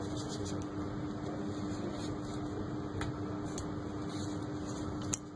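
Steady fan-like hum with a constant low tone, and a few faint light clicks, typical of small tools handling a phone during a screen repair.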